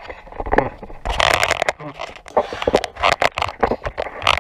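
Scraping and light knocking of handling: a plasma torch being moved against a steel straightedge guide clamped to a quarter-inch steel plate, in a string of irregular clicks and scrapes.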